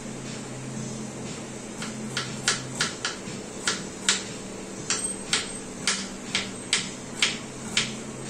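A knife cutting a small onion by hand: about a dozen crisp, sharp cuts, roughly two a second, starting about two seconds in, over a steady low hum.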